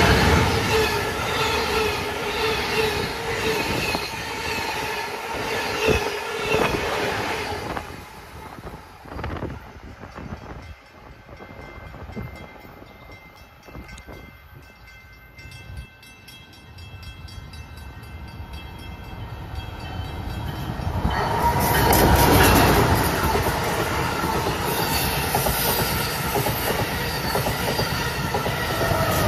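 Amtrak Acela Express trainset passing close by at speed, its rumble with a wavering whine fading away over about eight seconds. About twenty seconds in a second train passes on the far track, building to its loudest a couple of seconds later.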